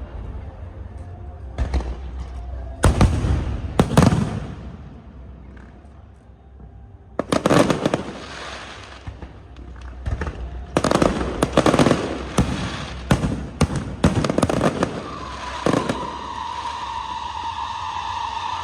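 Fireworks going off: a few separate sharp bangs in the first four seconds, then two spells of rapid crackling reports. A steady high tone sets in near the end.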